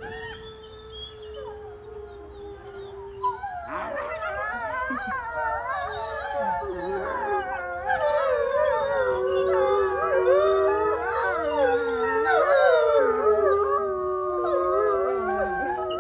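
Gray wolves howling: a single long, slowly falling howl, then about three and a half seconds in several more wolves join in a chorus of overlapping, rising and falling howls.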